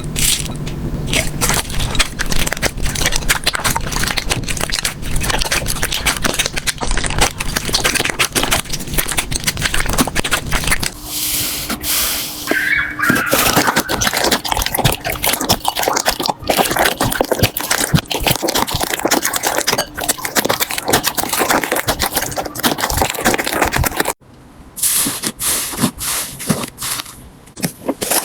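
Slime being squeezed and stretched by hand, making dense crackling and clicking. The texture changes abruptly about eleven seconds in and turns quieter near the end, as one clip gives way to the next.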